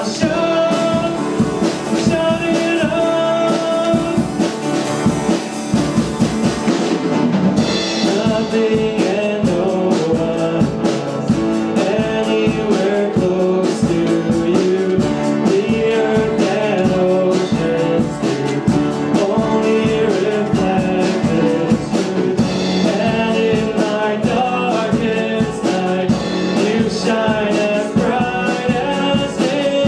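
Worship band playing a praise song, with singing over guitar and drum kit and a steady beat.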